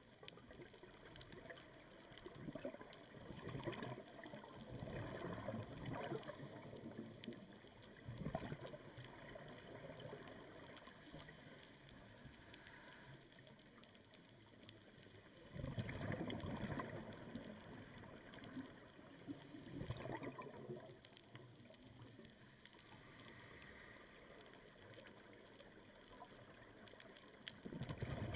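A scuba diver breathing through a regulator, heard underwater: exhaled bubbles gurgle in bursts a few seconds long, about every twelve seconds, with a faint high hiss between them.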